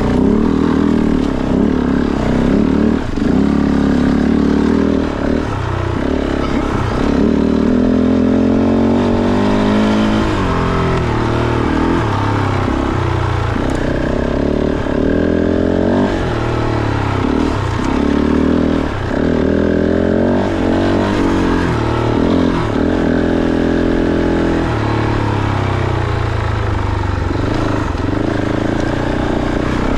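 Kove 450 Rally's single-cylinder engine revving up and down over and over as the dirt bike is ridden over rocky single track, with short knocks and clatter mixed in.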